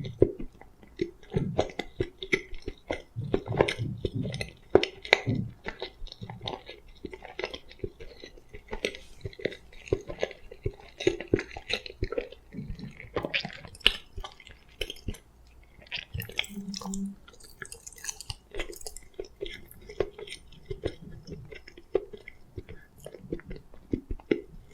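A person chewing food close to the microphone: irregular wet smacks and soft crunches of the mouth and teeth, with a brief low hum about two-thirds of the way through.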